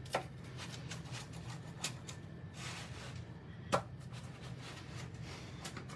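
Rolling pizza-wheel cutter slicing through a baked pizza's crust on a wooden peel, giving a few faint scattered crunches and clicks, the sharpest a little under four seconds in.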